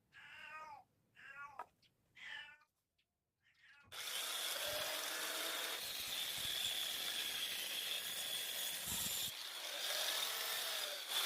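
An electric power tool starts about four seconds in and runs steadily for about eight seconds with a high whine, working timber. Before it come a few short high animal calls.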